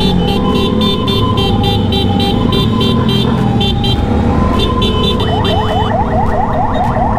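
Electronic siren sounding a two-note hi-lo wail, switching about five seconds in to a fast yelp of quick rising sweeps. Motorcycle engine and road noise run underneath.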